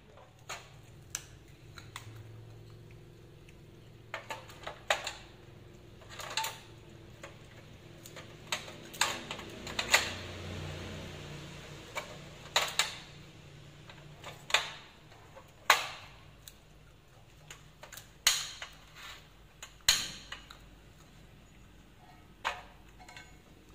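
Irregular sharp clicks and knocks of cookware and a portable gas stove being handled and set up, with a short hissing rush about ten seconds in.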